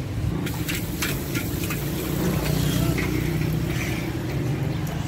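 Busy roadside ambience: the steady low rumble of passing traffic, with several sharp clicks and clatters in the first couple of seconds and faint voices in the background.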